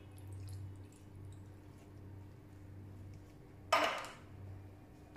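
Milk poured from a plastic measuring cup over raw chicken in a glass bowl, faintly, then a short knock of kitchenware just under four seconds in. A steady low hum runs underneath.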